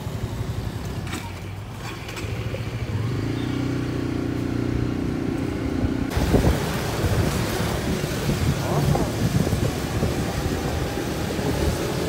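Motorcycle engine running as the bike pulls away and rides slowly, a steadier, higher note coming in about three seconds in. About six seconds in the sound changes abruptly to wind buffeting the microphone over the engine as the bike rides along.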